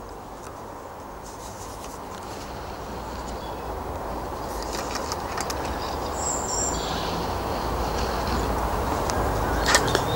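Low engine rumble of an approaching vehicle, growing steadily louder, with a short bird chirp about six seconds in.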